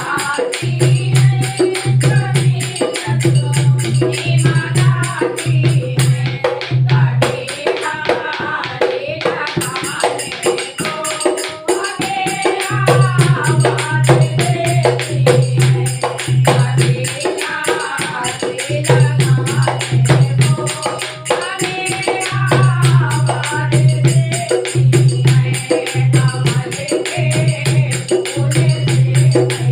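Hindu devotional bhajan music: singing over tambourine-like jingles and a steady beat, with a deep bass note that drops out for a few seconds about a third of the way through.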